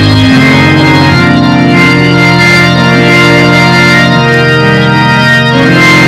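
Organ playing loud held chords that shift a few times, with no singing or speech over it.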